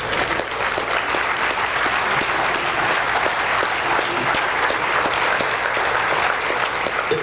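Large indoor audience applauding steadily, a dense patter of many hands clapping.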